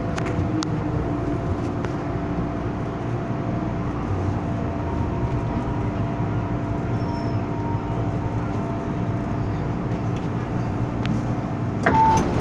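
MTR M-Train heard from inside the carriage as it slows to a stop at the platform: a steady rumble of the running gear with a low hum. Near the end comes a sudden loud clunk with a short beep as the doors begin to open.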